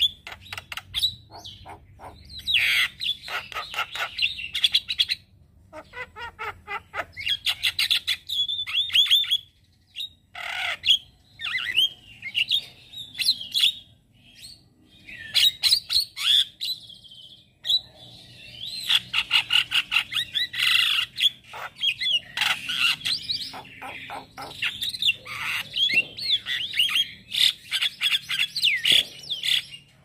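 Male Javan myna singing a fast, varied chattering song of squeaky gliding whistles mixed with rapid clicks, in runs broken by short pauses.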